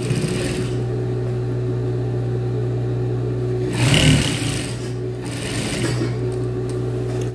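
Industrial sewing machine running as it stitches a seam through trouser fabric, with a steady motor hum and two louder surges of stitching about four seconds in and again a little later. The sound cuts off abruptly at the end.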